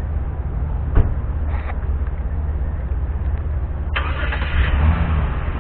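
Steady low engine rumble, with a sharp click about a second in and a burst of hiss about four seconds in.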